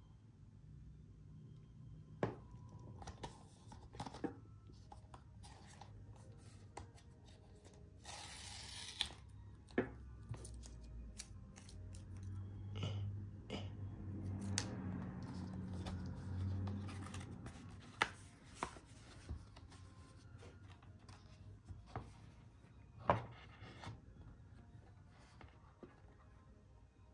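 Hands handling product packaging: scattered sharp clicks and taps, a short burst of rustling about eight seconds in, and softer rustling around the middle.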